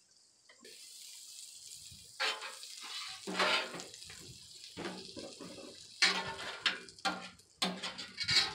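Butter sizzling and foaming on a hot flat-top griddle, as metal spatulas spread and scrape it across the cooktop. The sizzle starts about half a second in and swells. In the second half, sharp clacks and scrapes of the metal spatulas on the griddle are the loudest sounds.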